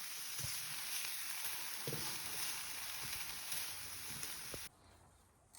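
Steady sizzling hiss of quesadillas cooking on a wood stove, with a few light knocks. It cuts off abruptly near the end.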